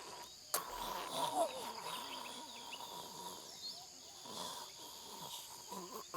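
Faint outdoor ambience with scattered small chirps, like birds and insects.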